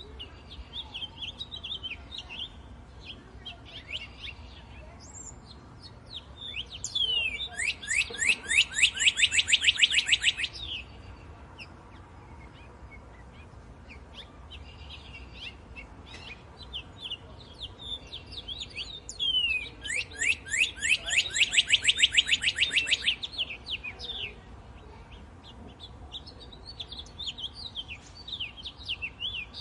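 Songbirds chirping, with two louder, long, rapid trills of repeated notes, one about a third of the way in and one past the middle, and softer scattered chirps between them.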